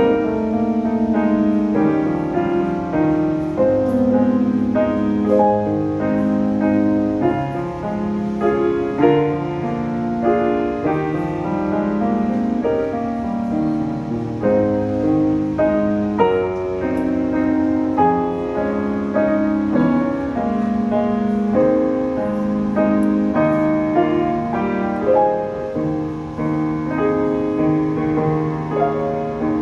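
Piano playing a slow, gentle instrumental prelude: a flowing melody over sustained chords.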